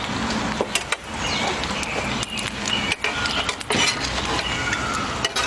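Oil sizzling steadily in a frying pan as a large fritter fries. Several sharp clicks and scrapes come from metal tongs and a spoon against the pan as the fritter is lifted to check its underside.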